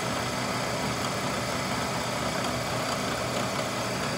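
Milling machine running at a steady hum between cuts, the end mill clear of the stainless part, so no cutting is heard.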